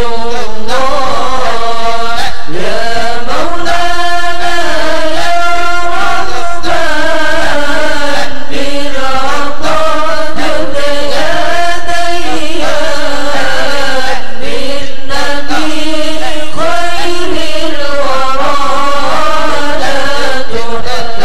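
Sufi dhikr chant (Qadiriyah wa Naqsyabandiyah), sung in Arabic as a long, slow, melodic line of held and bending notes. The verses invoke the Prophet Muhammad and Shaykh Abdul Qadir and ask God for mercy.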